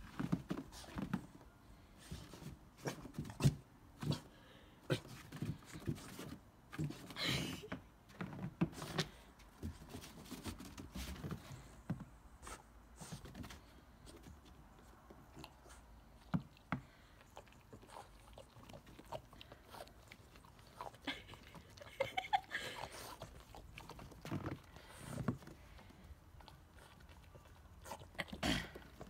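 French bulldog sniffing and snuffling with its nose down in fresh snow, in short scattered bursts with small clicks in between.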